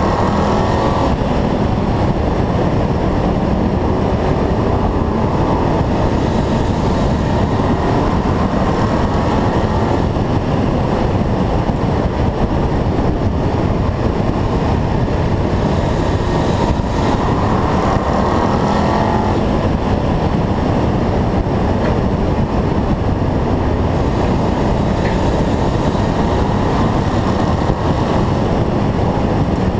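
Stock race car's engine running hard at racing speed around an oval track, a loud, steady racket of engine and rushing noise. The engine pitch climbs a few times as the car accelerates.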